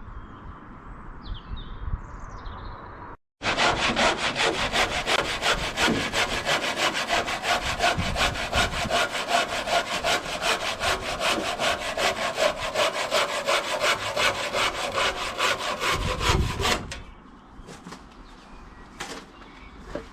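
Handsaw cutting through a pergola timber in steady back-and-forth strokes, about two a second, starting a few seconds in and stopping near the end. The end of the timber is being cut off so the pergola can sit flush against a wall.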